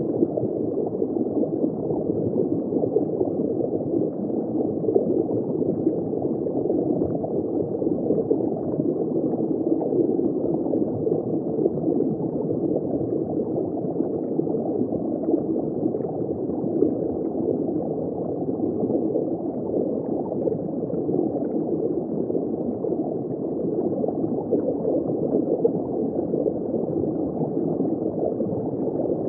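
Steady, muffled gurgling and churning of water circulating in a saltwater reef aquarium.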